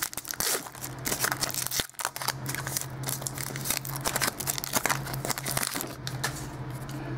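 Wrapper of a Topps Archives football card pack crinkling and tearing as it is torn open by hand, with irregular crackles throughout. A steady low hum runs underneath.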